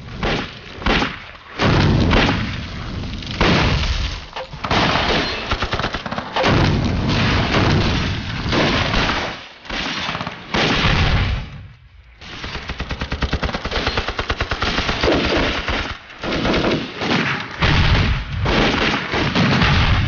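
Battle sound effects: rapid machine-gun and rifle fire, with heavy explosions going off at intervals. There is a short lull about twelve seconds in before fast machine-gun fire resumes.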